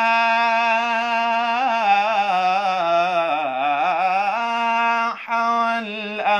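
A man chanting an Islamic devotional hymn (ibtihal) solo and unaccompanied, drawing the words out in long held notes with wavering melismatic ornaments. He breaks off briefly about five seconds in, then takes up the next word.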